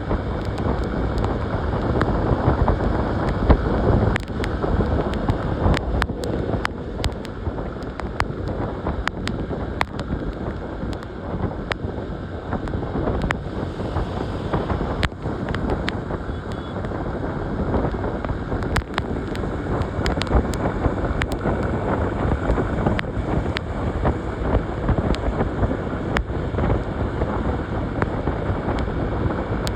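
Heavy wind buffeting on a phone microphone from a moving motorcycle, with engine and road rumble underneath and frequent sharp crackles from the wind hitting the mic.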